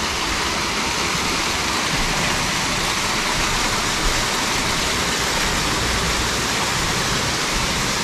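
Steady rush of water from a waterfall on a mountain river.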